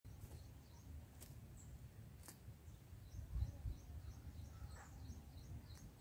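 Faint, high-pitched small-bird chirps in a quick series of several a second through the second half, over a low rumble of background noise.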